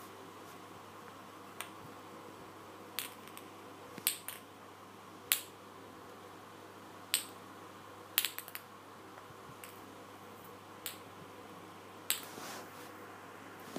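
A dozen or so sharp, irregular clicks and taps, some in quick pairs and clusters, over a faint steady hum.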